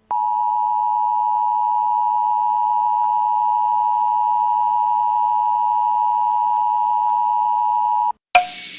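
Emergency Alert System attention tone: one steady, loud, high-pitched tone held for about eight seconds that cuts off abruptly, followed by a sharp click and a hiss of static near the end.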